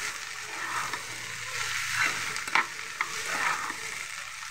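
Chopped onions sizzling in hot oil in a frying pan while a spatula stirs and scrapes them, with a few sharp taps of the spatula against the pan about two to three seconds in. The onions are partly fried.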